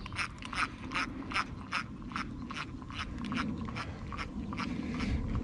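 1950s Luxor spinning reel being cranked on a steady retrieve, clicking evenly about two to three times a second over a low rumble.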